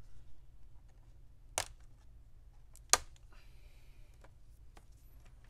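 Two sharp plastic clicks, the second louder, as the laptop's plastic bottom cover is worked loose at its edge, followed by a brief faint scrape.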